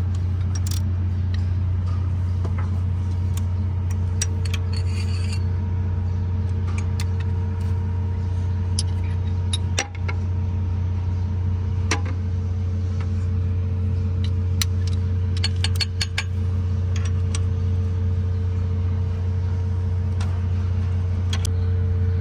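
A steady low mechanical drone from a running machine, with a level higher tone riding on it. Scattered metallic clicks and clinks of hand tools on the open injector and valve gear of a Cummins engine come and go over it.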